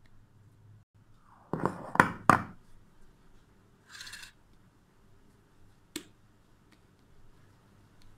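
Kitchenware being handled while a lump of pizza dough is pulled from a glass bowl over an aluminium pizza tray: three sharp knocks close together about one and a half to two and a half seconds in, a short hiss near four seconds, and a single click near six seconds.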